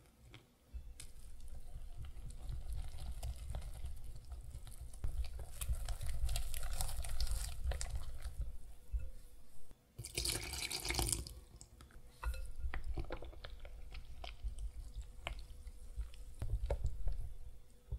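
A whisk stirring wet pancake batter in a glass bowl: a steady wet squelching with many small clicks of the wires against the bowl. About ten seconds in there is a louder rush for about a second.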